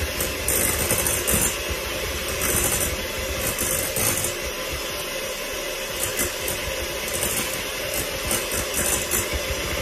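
Electric hand mixer running steadily, its beaters whisking melted butter in a glass bowl.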